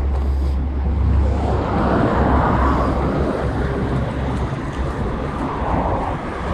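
City street traffic, a vehicle swelling past about two seconds in, with wind rumbling on the microphone, strongest in the first second and a half.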